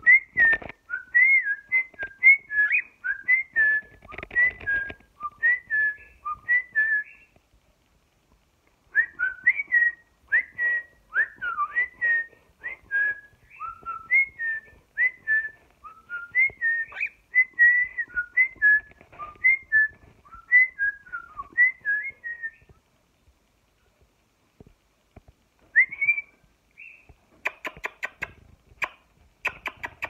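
Cockatiel whistling a warbling string of short notes that glide up and down in pitch, in two long runs with a short pause between. Soft clicking and rustling near the end.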